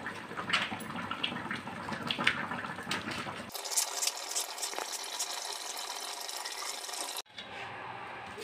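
Kitchen knife chopping green chillies on a plastic cutting board: a few irregular sharp taps. About three and a half seconds in, the sound changes abruptly to a steady hiss, which breaks off just before the end.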